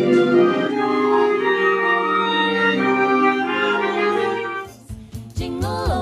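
School jazz band of saxophones, trumpets, trombones, piano, guitar and drums playing sustained chords. The music cuts off about five seconds in and a different piece with a steady low beat starts.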